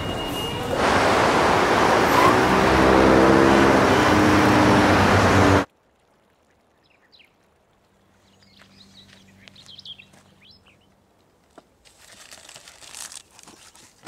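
Loud roar of a subway train in an underground station, with stepped motor tones rising under it. It cuts off suddenly about halfway through, giving way to quiet woodland air with faint bird chirps.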